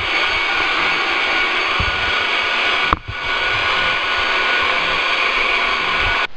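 Shop vac running steadily, drawing air through a small tube poked into an engine's spark plug hole to suck out metal shavings left from tapping the threads. The sound drops out briefly about three seconds in and cuts off suddenly at the end.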